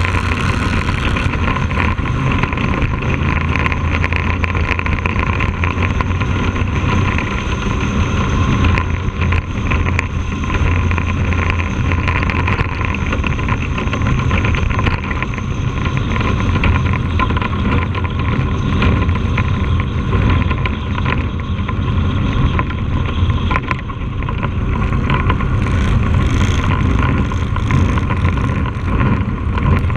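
Bandolero race car's engine running steadily at racing speed, heard from inside the car.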